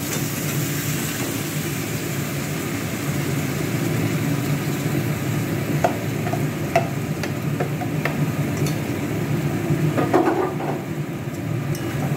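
Marinated chicken pieces sizzling as they are tipped into hot oil and fried onion and ginger-garlic paste in a kadai. The frying hiss is steady, with a few clinks against the pan.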